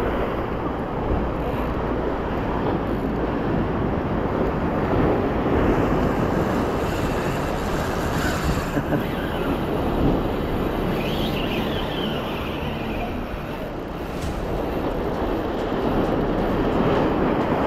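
Steady wind rumble on the microphone, with surf.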